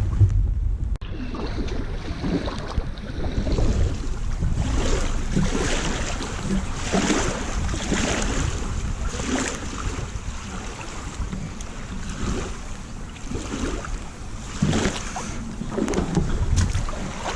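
Small waves lapping and splashing at the lough's edge about once a second, with wind rumbling on the microphone.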